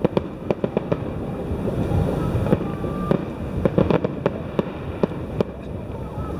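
Fireworks display: an irregular run of bangs and crackles, several a second, over a continuous low rumble of bursts.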